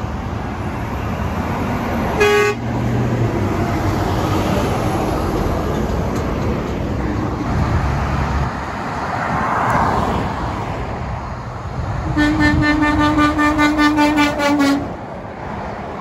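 Road traffic passing, with a short horn toot about two seconds in and a longer truck horn blast lasting about two and a half seconds near the end, lower in pitch than the first.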